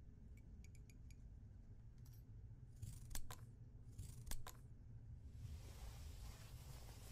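Hand sewing through wool suit cloth: a few faint needle ticks, then the thread drawn through the cloth twice with a short swish, each pull ending in a sharp tick, followed by soft cloth rustling.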